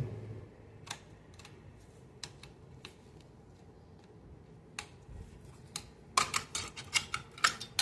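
Metal clicks of a Micro Draco AK pistol being stripped, a few single clicks spaced apart and then a quick run of clicks and rattles near the end as the recoil spring is pushed in and the dust cover comes off.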